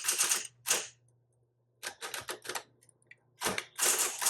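Smith-Corona Electra 220 electric typewriter being typed on: quick runs of sharp keystrokes with short pauses between them, over the steady low hum of its running motor.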